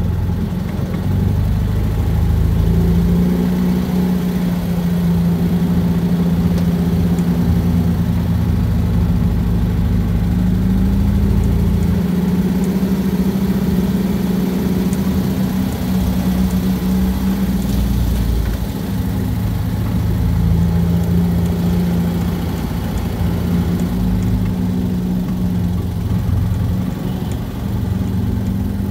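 Off-road dune buggy engine running at a fairly steady speed, with a low rumble beneath its hum.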